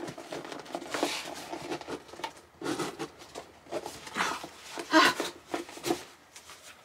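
A cardboard box being handled and opened by hand: irregular rustling, scraping and light knocks of cardboard and paper packaging.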